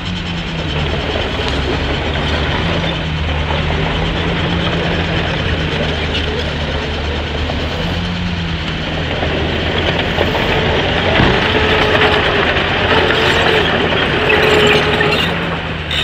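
Komatsu D61PX crawler bulldozer working: its diesel engine drones steadily under a continuous metallic clatter from the steel tracks, and a higher whine joins from about nine seconds in as the sound grows a little louder.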